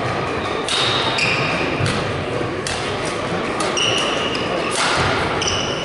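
Badminton rally: sharp racket-on-shuttlecock hits about once a second, five in all, with short high squeaks of court shoes on the wooden floor between them, over low hall chatter.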